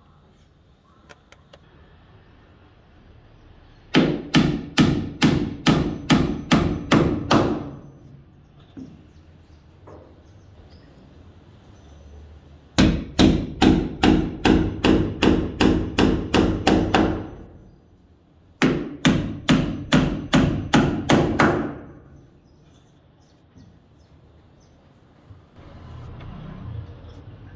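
Hammer driving a nail into wood: three runs of steady blows, about two to three a second, with pauses of a few seconds between the runs.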